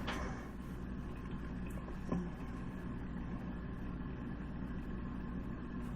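Steady low background hum, with a faint click about two seconds in.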